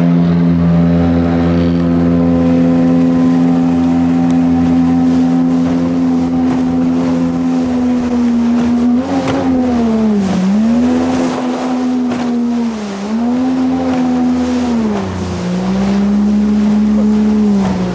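Jet boat engine running hard, with a steady pitch at first. About halfway through the pitch dips and recovers about three times as the throttle and load change in the rapids.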